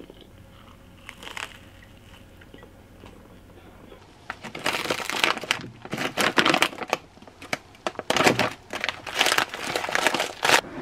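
Plastic frozen-food pouches crinkling loudly as they are handled, in a run of irregular bursts starting about four seconds in.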